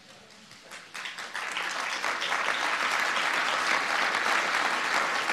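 Audience applauding: faint clapping at first that swells about a second in and then holds steady.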